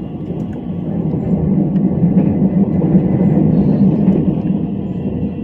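Passenger train running at speed, heard from inside the carriage: a steady low rumble that swells about a second and a half in and eases near the end.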